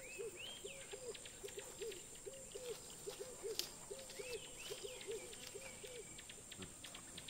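Wildlife ambience: a low hooting animal call repeated two or three times a second, stopping about six seconds in, with a few higher rising-and-falling bird whistles and scattered faint clicks.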